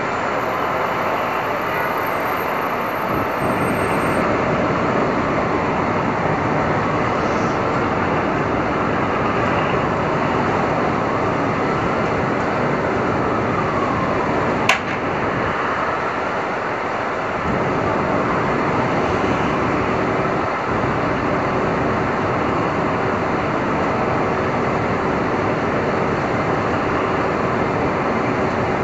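Steady Manhattan street traffic noise. A faint tone rises and falls slowly through it, and there is one sharp click about halfway through.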